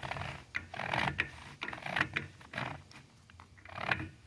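Turbo 400 forward hub being worked by hand down into the clutch drum, metal parts rubbing and clicking in irregular bursts as it is twisted to line up, not yet seated.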